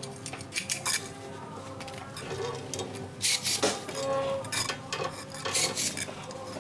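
Electric ring-bending tool of the TOM system closing metal rings around tomato stems: three short metallic clacks, spaced a couple of seconds apart.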